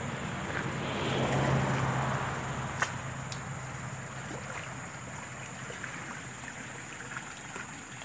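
Water sloshing and swishing as a hand dip net is swept through shallow stream water and leaf litter. It is loudest from about one to two and a half seconds in, with a single sharp tick near three seconds, then settles to a fainter wash.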